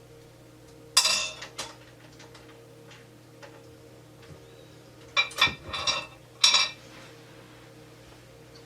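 Dillon XL650 progressive reloading press being cycled, with sharp metallic clinks of press parts and brass: one clink about a second in, a smaller one shortly after, and a burst of clinks around five to six and a half seconds. A steady motor hum from the feeders runs underneath.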